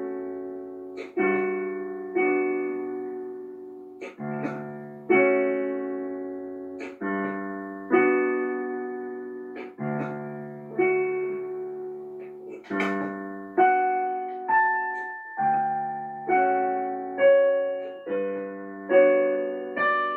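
Background solo piano music: slow chords and single notes struck about once a second, each ringing and fading before the next.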